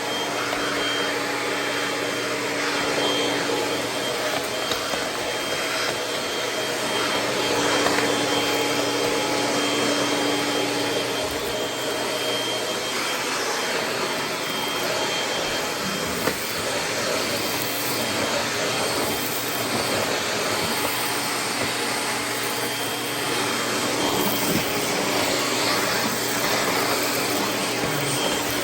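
Upright vacuum cleaner running steadily on carpet: a continuous motor roar with a faint steady whine, its level swelling and easing slightly.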